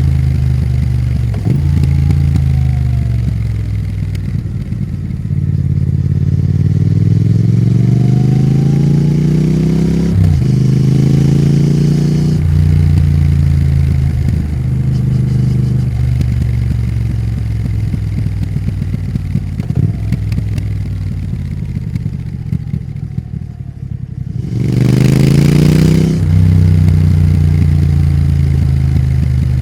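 Triumph Thruxton RS's 1200 cc parallel-twin engine under way, pulling through the gears in several rising runs, each cut by a gear change. After a brief lull there is a quick, sharp climb in revs near the end.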